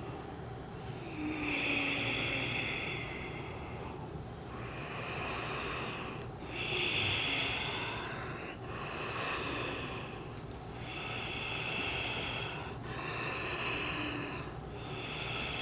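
A woman breathing deeply and rhythmically, with loud drawn breaths following one another about every two seconds, as she goes into a channelling trance.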